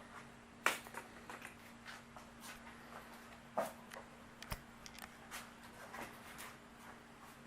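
Scattered light clicks and taps of hands handling engine parts during a cylinder-head fitting, the sharpest about two-thirds of a second in, over a faint steady hum.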